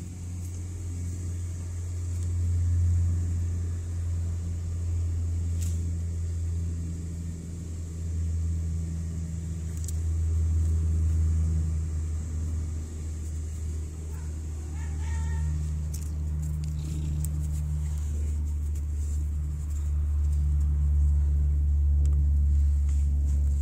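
A mother cat purring steadily and loudly close by, the purr swelling and easing every few seconds. About fifteen seconds in comes one short, high, rising squeak.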